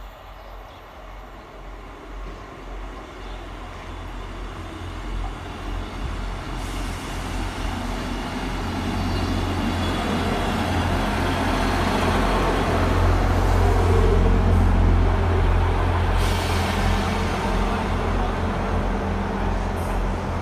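South Western Railway Class 159 diesel multiple unit (two units coupled) arriving and slowing alongside the platform: a low diesel engine drone with rumble from the wheels, growing steadily louder as the train draws in and passes. A high hiss joins about sixteen seconds in.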